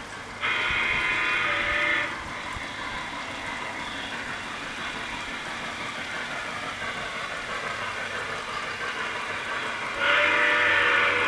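Lionel Legacy model Pennsylvania 2-10-4 J1a steam locomotive blowing its sound-system steam whistle: one long blast starting about half a second in, and another near the end. Between the blasts the locomotive's quieter steady running and steam sound carries on.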